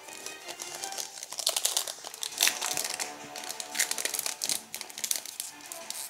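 Foil wrapper of a Panini Prizm Draft Picks card pack crinkling and crackling as it is handled, the crackles starting about a second in and coming thick and sharp. Quiet background music plays under it.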